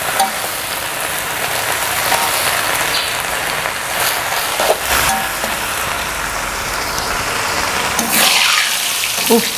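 Water spinach stir-frying in a large metal wok: a steady sizzle, with the metal spatula scraping and clinking against the pan now and then, and a louder stretch of stirring a little after eight seconds.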